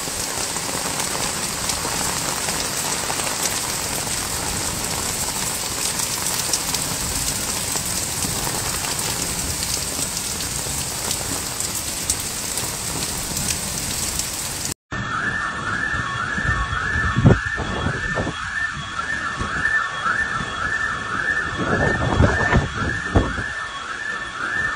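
Heavy rain pouring and running water, a steady hiss. After about fifteen seconds it cuts to a different recording: an electronic alarm warbling up and down a few times a second over rushing water, with a few low rumbles.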